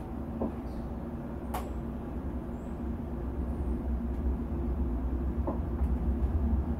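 A steady low rumble that grows slightly louder toward the end, with a few faint clicks, one about a second and a half in.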